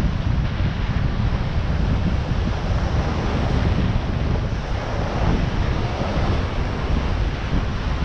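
Wind buffeting the microphone over the steady wash of surf breaking on a sandy beach.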